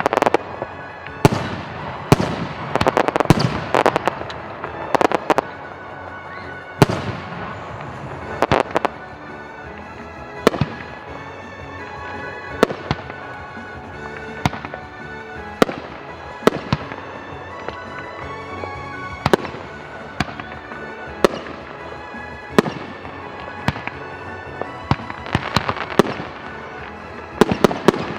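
Fireworks bursting overhead, a sharp bang about every second, closer together and with long ringing, crackling tails in the first few seconds and again near the end, over background music.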